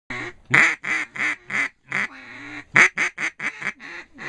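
Duck quacking: about a dozen loud, nasal quacks in quick, uneven succession, starting abruptly.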